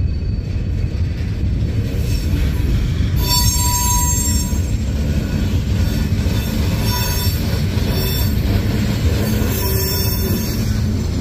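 Freight train cars rolling past with a steady low rumble. From about three seconds in, a high-pitched metallic squeal from the wheels comes and goes.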